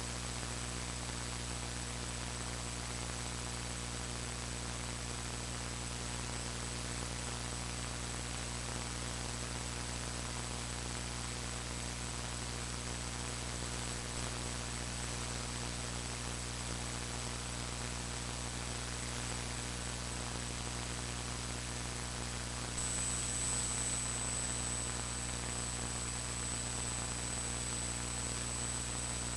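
Steady electrical mains hum and hiss with a thin high whine: the noise of a faulty audio track with no speech on it. The whine gets louder about three-quarters of the way through.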